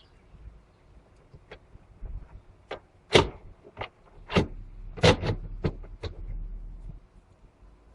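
A quick series of sharp clicks and knocks, about eight in three seconds, the first the loudest, as car parts and tools are handled during fuel pump replacement work, over a faint low rumble in the second half.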